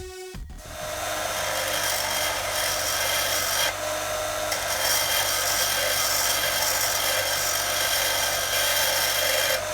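A power grinder grinding down a steel coach bolt, running steadily from about half a second in, to make clearance.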